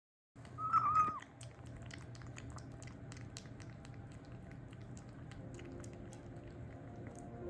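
A kitten meows once, a short wavering cry about a second in, followed by faint irregular clicks.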